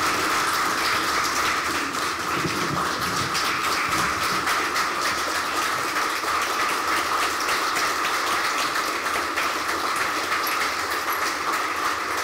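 An audience of about a hundred people applauding steadily.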